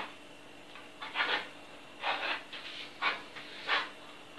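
A fork scraping and stirring through flour and sticky dough on a wooden board, in short irregular strokes about a second apart.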